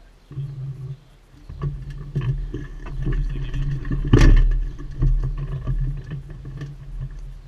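The buggy's 350cc engine idling with a steady low hum. Knocks and rattles of hands on the steel frame come through it, the loudest about four seconds in.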